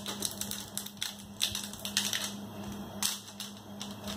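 Irregular light clicks and taps from hands handling a Nokia 3 smartphone and small parts from its box. They come thickest in the first two seconds and again about three seconds in.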